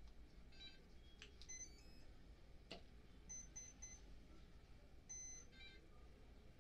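Faint start-up beeps of a Hobbywing Skywalker 20A ESC played through the windings of a DYS D2822 brushless motor as a 3-cell LiPo is connected: a short tune of start-up tones, then three short beeps for the three cells, then a longer beep as the ESC arms at zero throttle. A sharp click sounds between the start-up tones and the three beeps.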